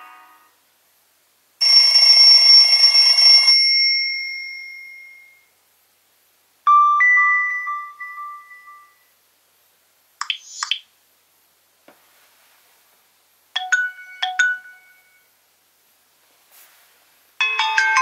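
Nokia C3 phone's built-in alert and message tones played one after another through its loudspeaker: about five short electronic chimes and beeps, with silent gaps between them. One is a pair of quick chirps and another is three quick notes; the last begins near the end.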